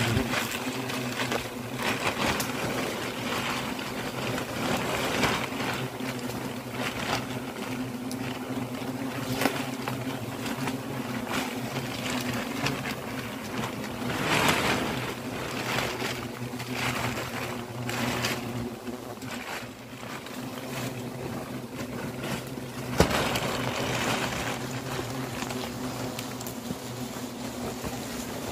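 Black-backed hornets buzzing in a steady droning hum, with crackling rustles of a plastic bag and leaves as their nest is bagged and cut from the branch. The hum weakens in the last third.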